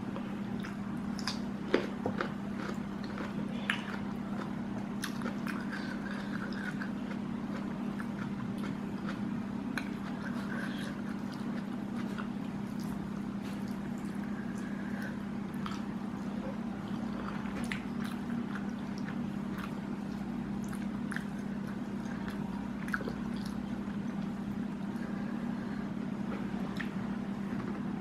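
Close-up eating sounds: chewing, wet mouth smacks and small clicks as spicy squid, rice and okra are eaten by hand, over a steady low hum.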